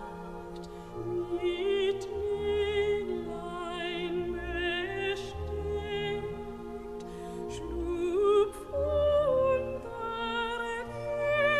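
Background music: a classical-style singing voice with heavy vibrato over sustained instrumental accompaniment, with recurring low bass notes.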